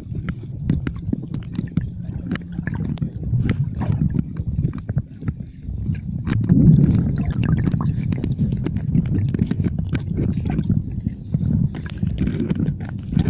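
Muffled water sloshing and gurgling, low and dull, with many small clicks and ticks scattered through it.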